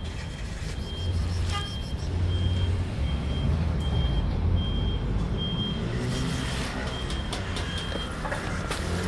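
A vehicle's reversing alarm beeping at an even pace, a short high beep about every three-quarters of a second that stops near the end, over a low engine rumble.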